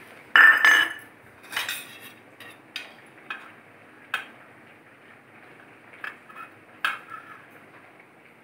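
Stainless steel kitchenware clinking: a steel bowl gives one loud ringing clink about half a second in, followed by a string of lighter taps and clinks as a steel spoon scrapes and knocks against a steel serving plate.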